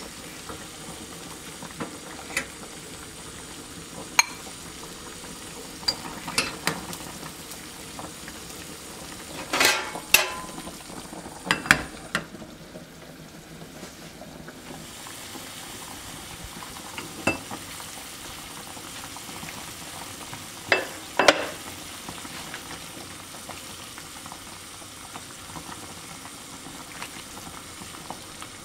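Beef broth at a rolling boil in a stainless steel pot. Scattered clinks of a metal ladle against the pot run through it, with louder clusters of clanks about ten seconds and about twenty-one seconds in, when the glass lid is set on and lifted off.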